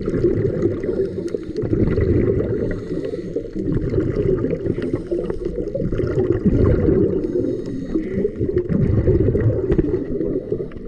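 Muffled rushing and gurgling of water heard underwater, a dense low churning noise that rises and falls, with scattered faint clicks.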